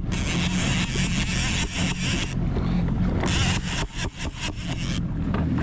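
Jet ski engine idling steadily. Over it runs a hissing wash of wind and water that comes and goes.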